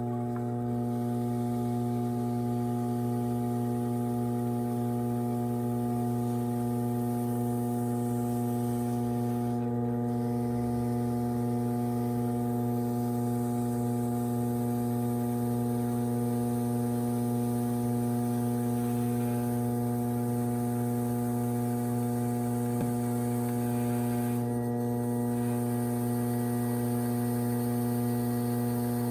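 Electric potter's wheel motor humming steadily as the wheel spins during trimming, a constant low hum with several even overtones.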